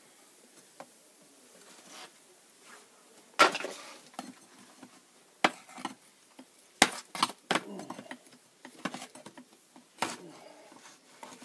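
Irregular sharp knocks and clinks of hard objects being handled and set down, loudest about three and a half seconds in and again near seven seconds, with a quick cluster just after.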